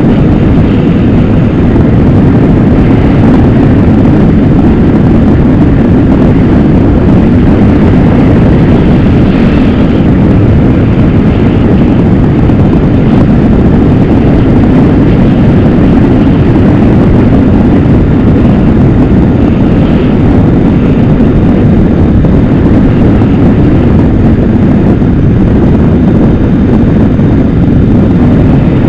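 Motorcycle cruising along a winding highway: a loud, steady rush of engine and road noise with no change in pace.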